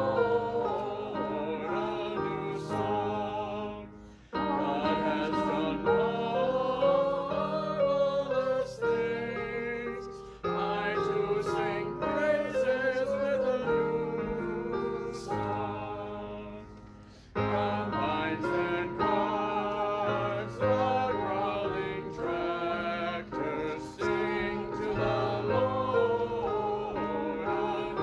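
Congregation singing a hymn together, in long phrases with short breaks between them about 4, 10 and 17 seconds in.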